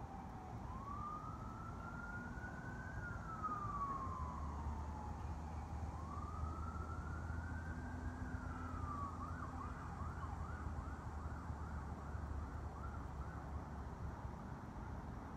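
Emergency vehicle siren in the distance, first in a slow rising and falling wail, then switching about two-thirds of the way through to a fast yelp of about four sweeps a second that fades out. A low steady rumble lies underneath through the middle.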